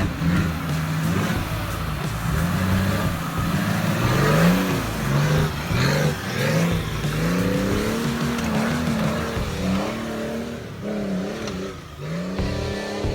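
GAZ-69 off-road vehicle's engine revving up and dropping back again and again, in quick repeated blips of throttle.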